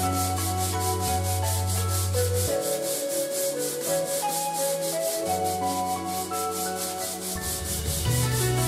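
Sandpaper on a hand block rubbing a hinoki cypress floorboard in quick, even back-and-forth strokes, about five a second. Background music plays underneath.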